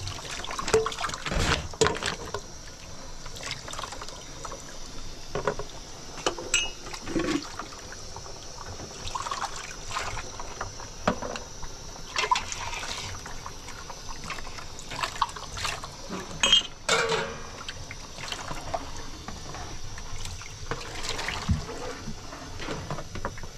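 Water splashing and running, with irregular knocks and clinks throughout.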